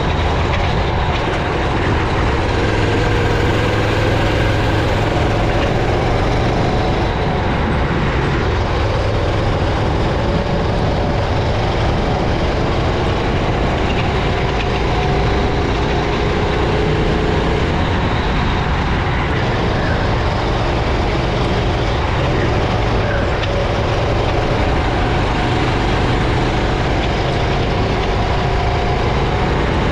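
Racing kart engine running on track, its pitch slowly rising and falling with speed, under a heavy, steady low rumble.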